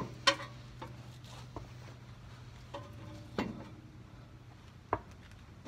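A few sharp knocks and taps as the wheel and tire are handled against the hub of a jacked-up Ford Expedition, the three clearest about a quarter second, three and a half seconds and five seconds in. A low steady hum runs underneath.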